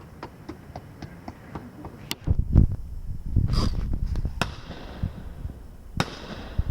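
Shotgun shots at clay targets: sharp reports about two seconds in, again past the middle and near the end, with a loud low rumble after the first.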